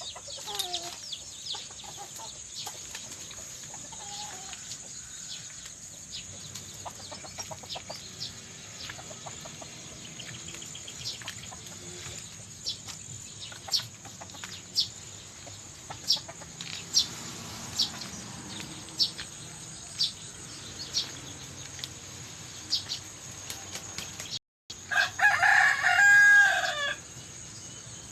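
Chickens clucking, with scattered short chirps over a steady high insect trill. Near the end, after a brief dropout, a rooster crows once, loudly, for about two seconds.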